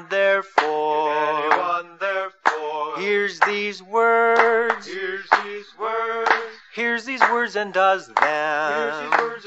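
Men and women singing a song together in held, wavering phrases about a second long, with short breaks between them.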